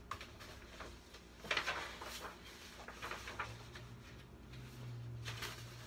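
Pages of a large picture book being turned and handled: several short paper rustles, the loudest cluster about a second and a half in.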